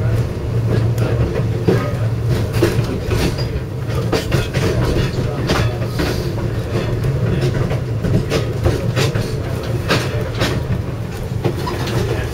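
A moving Wabash caboose heard from inside: a steady low rumble of the car riding the rails, with frequent irregular clicks and clanks from the wheels and running gear.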